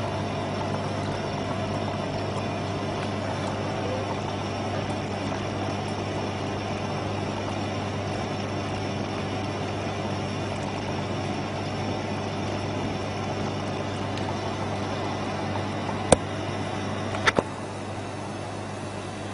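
A steady machine hum, with a few sharp clicks late on.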